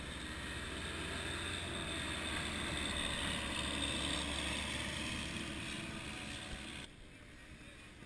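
Diesel engine of a tracked snow groomer running close by, a steady low hum with hiss that grows louder toward the middle. About seven seconds in, the engine sound drops away abruptly.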